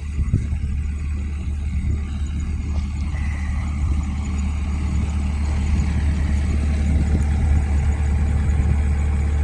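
Takeuchi TB290 compact excavator's diesel engine running steadily, growing a little louder in the second half.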